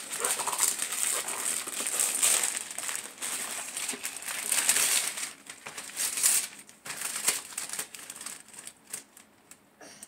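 Gift wrapping paper being torn and crumpled as a present is unwrapped: irregular crinkling and ripping that dies down over the last few seconds.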